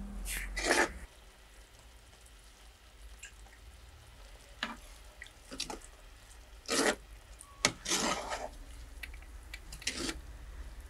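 Cooking work being handled by hand: about eight short clicks and scrapes at irregular moments over a low steady hum.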